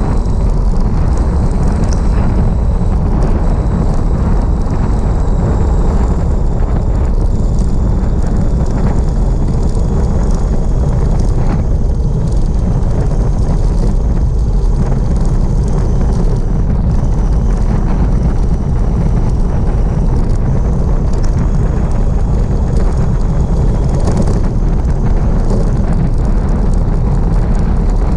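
Heavy wind buffeting on a bike-mounted camera's microphone during a fast bicycle descent: a steady, loud low rush, with a faint high whine drifting slowly down in pitch.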